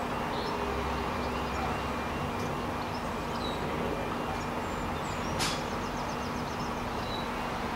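Faint steady rumble of a distant train, with small birds chirping. A single sharp click comes a little over five seconds in.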